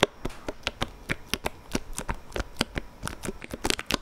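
Elgato Stream Deck's keys being pressed one after another, a quick series of sharp clicks at about four or five a second, coming faster near the end.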